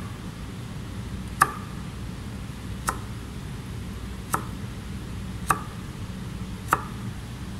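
A chef's knife cutting carrot into small dice on a plastic cutting board: five separate knocks as the blade strikes the board, about one every second and a half, over a low steady hum.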